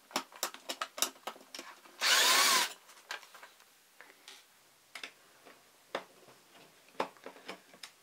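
A small electric screwdriver whirs for about half a second, about two seconds in, backing a screw out of a metal chassis. Light clicks and taps of screws and tool against the sheet metal come before and after it.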